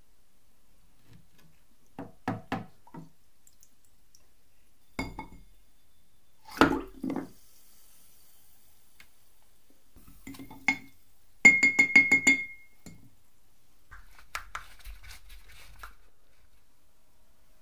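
Metal part knocking and clinking against glass jars while it is dipped into baking soda solution to neutralise rust-removing acid; the glass rings briefly after the loudest knocks. Near the end comes a fainter scraping of a screwdriver tip over the part's crusted surface.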